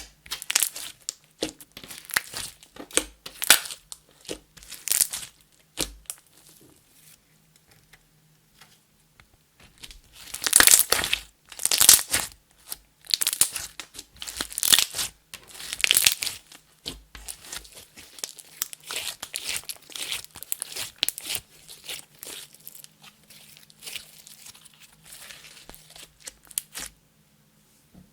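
Clear slime being kneaded, stretched and pressed by hand, giving irregular sticky crackles, pops and squelches. The crackling is loudest in the middle stretch and dies away near the end.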